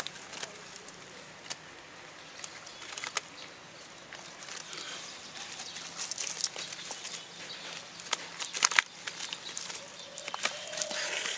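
Freshly netted fish flapping and slapping against a wet cast net and the grass as they are picked out by hand, in irregular sharp slaps with rustling of the net.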